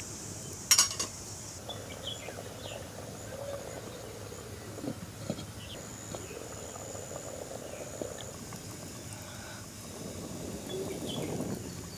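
Steady high chirring of insects over faint bubbling and crackling from rice boiling in a pot on a wood fire, with one sharp clink about a second in.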